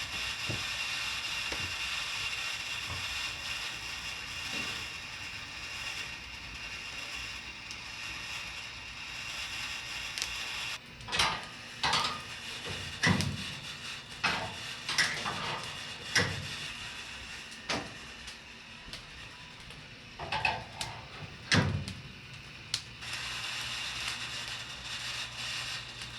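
Wood-fired rotisserie mechanism running with a steady whir, then about halfway through a dozen or so irregular sharp metal clanks and knocks before the steady whir resumes.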